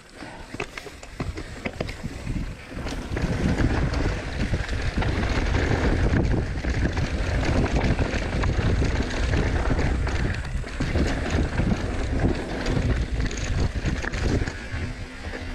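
Wind buffeting a chest-mounted GoPro's microphone as an Ibis Mojo HD3 mountain bike descends a dirt trail, with rattles and knocks from the bike over bumps. The noise builds over the first few seconds as the bike picks up speed, then holds steady.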